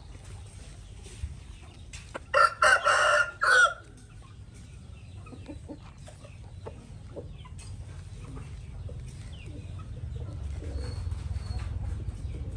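A rooster crows once, about two seconds in, a loud call lasting about a second and a half, over a steady low rumble.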